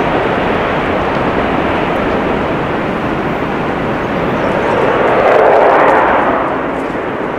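An Airbus A350's twin Rolls-Royce Trent XWB turbofans run at takeoff thrust as the airliner rolls down the runway, heard from behind. The steady jet noise swells to its loudest about five to six seconds in.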